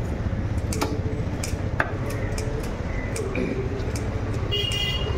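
Busy roadside market ambience: a steady low traffic rumble with scattered sharp clicks and knocks, and a high horn toot near the end.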